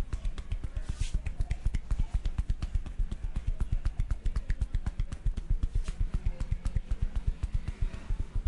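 Percussive massage strokes: the barber's hands beat rapidly and evenly on the client's body in a fast, drum-roll-like run of dull thumps, about nine a second.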